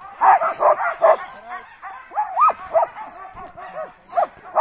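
Sled dogs barking and yelping: a dense run of short yips in the first second, then spaced-out high yelps and whines with rising and falling pitch, and another loud yelp near the end.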